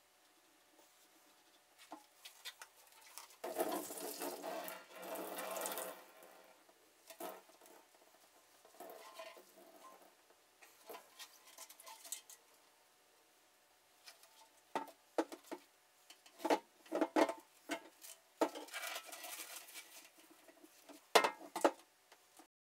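Acid sloshing inside a plastic-wrapped motorcycle fuel tank as it is gently tilted and turned to reach every corner, with the crinkle of the plastic wrap and irregular light knocks. There is a longer swish about four seconds in.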